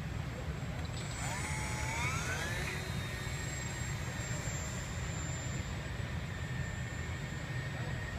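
Small radio-controlled Gee Bee model racer's motor and propeller whining up in pitch over about two seconds as it throttles up for take-off, then holding a steady high whine. A steady low hum runs underneath.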